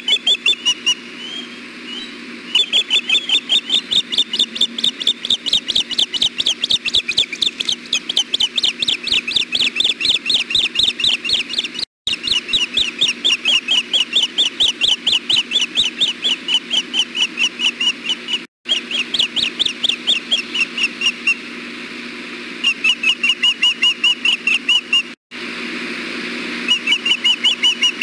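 Ospreys calling in long, rapid series of high, whistled chirps, several a second, with a few short pauses: excited calling as the male arrives at the nest with a fish.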